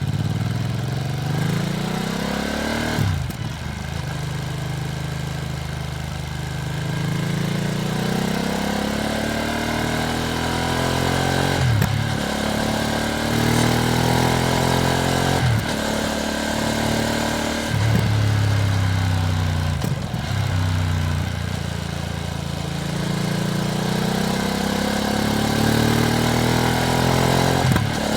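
Ducati Streetfighter V2S motorcycle's V-twin engine under way, its pitch climbing and falling with the throttle. It is broken several times by short sharp cuts as the rider shifts gear. The engine is new and still being run in.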